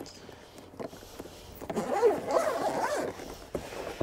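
A dog whining: a run of rising-and-falling whines lasting about a second and a half, starting a little under two seconds in.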